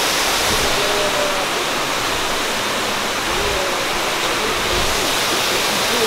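Waterfall: a steady, loud rush of water falling over rocks.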